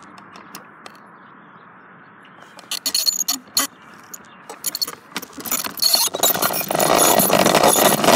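Bicycle rattling and clicking as it is ridden off the end of the sidewalk, then from about six seconds in a loud steady rushing noise as the ride goes on.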